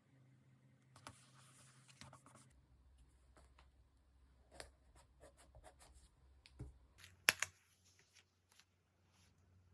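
Paper and stationery being handled while decorating a diary: a soft paper rustle about a second in, then scattered small taps and clicks, with two sharper clicks near the end.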